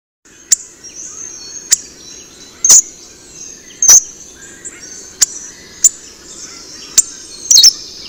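Hawfinch giving its hard, explosive "tzik" calls: about eight short, sharp clicks, roughly a second apart, over fainter background twittering.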